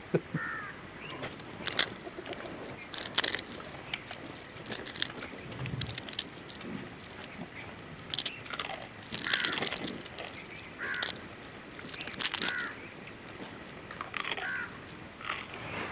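Several people biting into and chewing crisp fried garlic murukku, giving sharp crunches every second or two. Short bird calls come in between.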